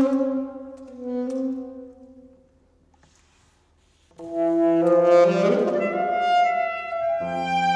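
Live instrumental ensemble, mainly wind instruments, playing sustained chords: a chord dies away into a short pause, and the ensemble comes back in with a new held chord about four seconds in.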